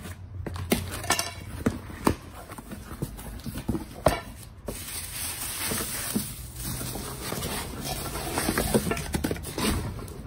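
A cardboard parcel being opened by hand: sharp clicks and knocks of the flaps and box being handled, with one loud crack about four seconds in, then bubble wrap rustling and crinkling as it is pulled out.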